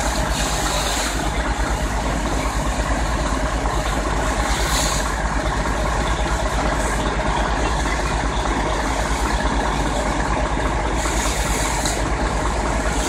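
Heavy fire engine running steadily with a low, even engine throb, with two short hisses, about five seconds in and again near the end.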